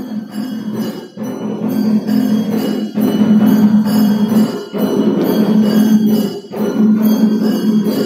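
Temple aarti: many bells ringing continuously over drums, the dhol and nagada. A low tone under the ringing breaks off briefly every second or two.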